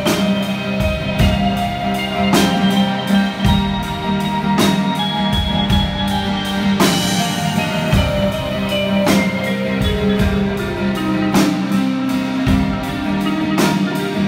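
Live band music: a strummed acoustic guitar over drums, with a heavy drum hit about every two seconds, lighter beats between, and a held low note underneath.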